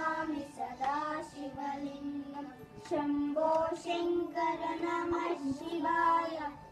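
Three children singing a devotional song together, with long held notes and short breaks between phrases.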